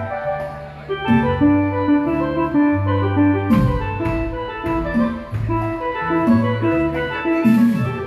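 Live cumbia band playing: an electronic keyboard melody in short held notes over a bass line, with timbale and drum hits and a cymbal crash near the end.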